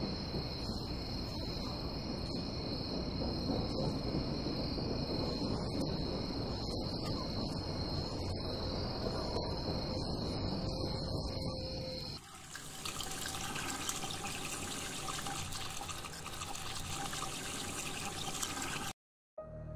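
Crickets chirring steadily over a low rumbling noise. About twelve seconds in this cuts to the hiss of a tap running into a sink.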